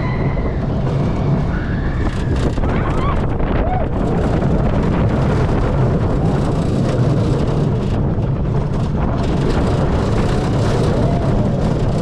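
Onboard ride on the Cobra's Curse roller coaster: a steady, loud rush of track rumble and wind on the microphone as the train runs the course. Faint onboard ride audio can be heard in the first few seconds.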